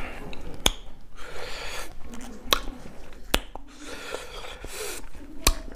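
Close-miked eating sounds from a man eating singju salad with his hands: chewing and mouth noises, broken by a few sharp clicks.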